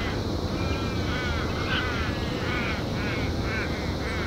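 Birds calling over and over in short, harsh, arching calls, several a second, over a steady low rumble.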